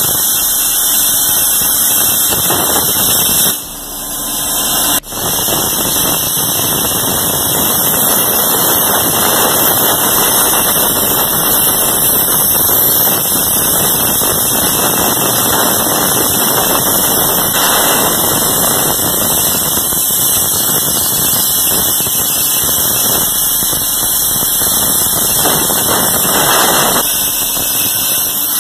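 Plasma torch of an ESAB Crossbow HD CNC cutting table cutting steel plate: a loud, steady hiss. It drops away briefly about three and a half seconds in and comes back with a sharp click about a second later.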